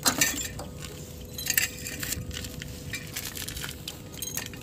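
Sharp metallic clicks and clinks of a handbrake cable's end being pushed into its steel bracket and clipped in place, the loudest right at the start and again about a second and a half in.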